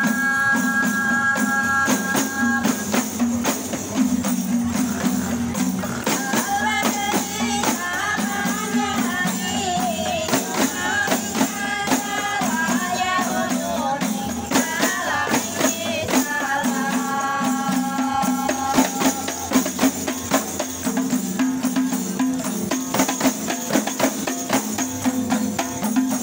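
A rebana group beating hand-held frame drums in a steady rhythm as it walks, with voices singing together in phrases that come and go over the drumming.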